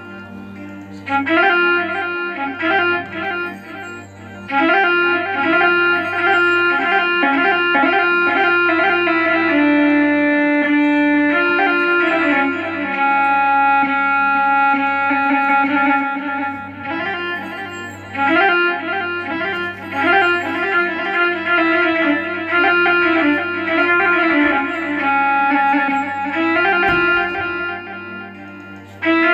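Electronic keyboard, a Korg Triton, playing a rababa (Arab spike fiddle) sample voice in a slow, free ataba and mawwal-style melody. Held notes come in phrases over a steady low drone, with short breaks between phrases.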